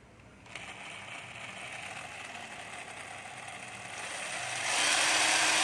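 12-volt cordless drill/driver's motor running on test: it starts about half a second in at low speed, then speeds up and gets louder about four and a half seconds in as the trigger is squeezed further.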